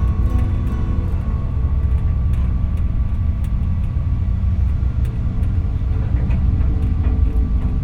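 A loud, steady low rumble with a few faint steady tones above it.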